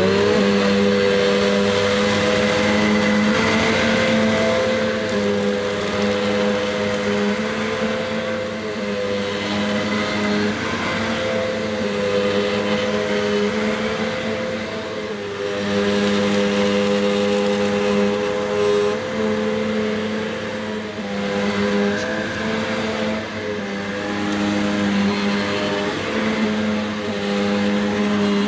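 Hoover Enigma bagged upright vacuum cleaner switched on, its motor spinning up quickly and then running loudly with a steady whine and rush of air. Its pitch and level sag and recover every few seconds as it is pushed back and forth over carpet, picking up debris.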